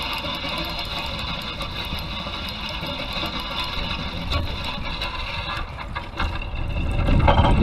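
Fishing reel being cranked, a steady whirring whine as line is wound in with a small rainbow trout on, stopping about six seconds in. A low rumble of wind on the microphone runs underneath and grows louder near the end.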